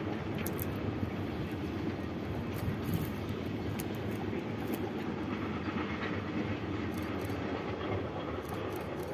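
Container freight train (a TECO) rolling steadily across a viaduct: the long rake of container wagons makes a steady rolling noise with occasional faint clicks.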